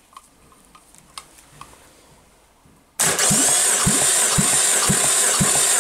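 Starter cranking a Citroën/Peugeot 1.8-litre 16V EW7A four-cylinder petrol engine for a compression test on its second cylinder. It starts about three seconds in as a steady loud whir with a low beat about twice a second. Before it there are a few faint clicks.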